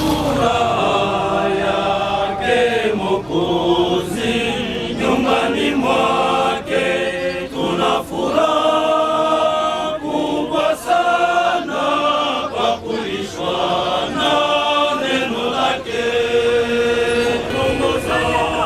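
A group of voices singing a hymn in Swahili, moving between long held notes.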